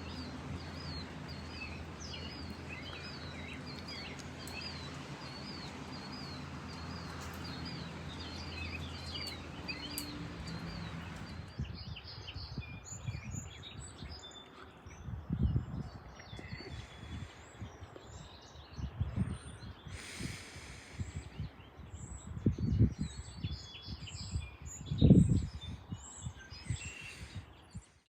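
Songbirds chirping, one bird repeating the same short call over and over in the first part. After an abrupt change about eleven seconds in, several birds chirp together while low rumbling bursts come and go, the loudest near the end.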